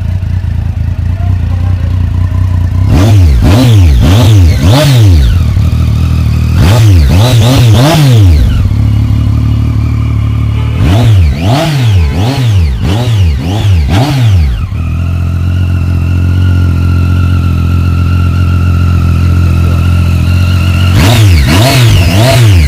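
Triumph Street Triple 675's inline three-cylinder engine through an Arrow slip-on exhaust, idling and revved in quick throttle blips, a few at a time in four clusters, with a longer steady idle in the second half.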